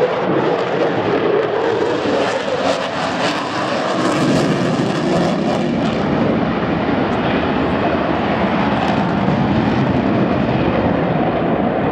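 Loud, steady aircraft engine noise from a display aeroplane.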